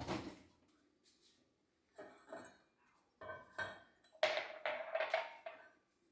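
Dishes and cutlery clinking and clattering as they are handled, in several short bursts, the loudest and longest in the second half with a ringing tone.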